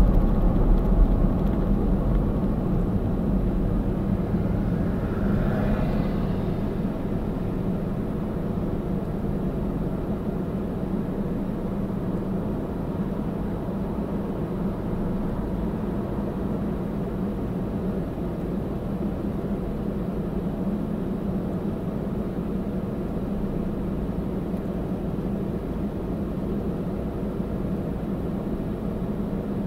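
Car interior noise: road and engine noise fade as the car slows to a stop over the first several seconds, then give way to a steady low hum while it sits idling. A faint rising whine is heard about five seconds in.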